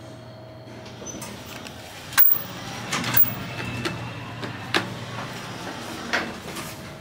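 Goldstar LVO elevator car with a steady low hum. A sharp click comes just over two seconds in, and several more clicks and knocks follow as the stainless steel car doors slide open.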